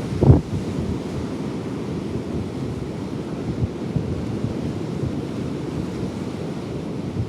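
Stormy Baltic Sea surf rushing under strong wind buffeting the microphone, with a hard gust hitting the mic just after the start.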